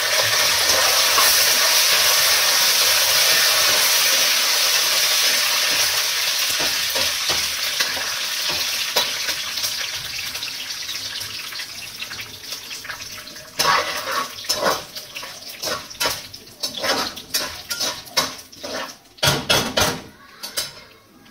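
Curry leaves dropped into hot tempering oil in a kadai, sizzling loudly at once, the sizzle slowly dying down as the leaves fry. Over the last several seconds, irregular scraping strokes of stirring in the pan.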